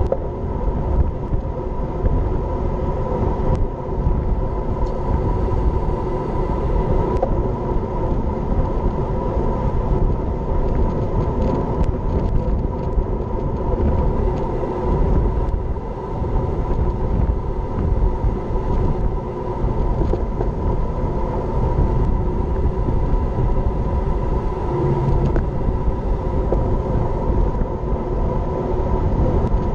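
Steady rush of wind over an action camera's microphone on a moving road bike, mixed with road bike tyres humming on asphalt.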